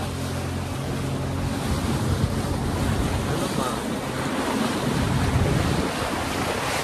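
A small open motorboat under way: its motor hums steadily beneath the rush of water along the hull and wind buffeting the microphone. The engine's hum is clearest for the first second or two, then the water and wind noise takes over.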